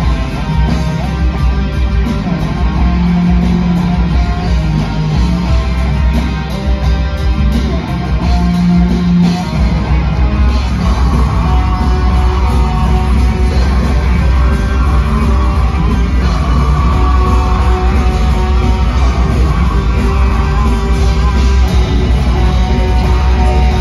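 Live heavy metal band playing loud through a PA: distorted electric guitars over bass and drums, with the low end growing heavier and steadier about ten seconds in.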